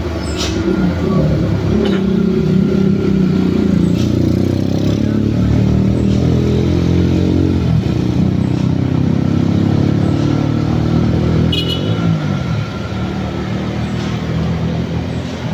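Heavy vehicle engine labouring up a steep climb, running loudly and steadily with its pitch wandering up and down, with a few sharp clicks and a brief high-pitched sound about eleven and a half seconds in.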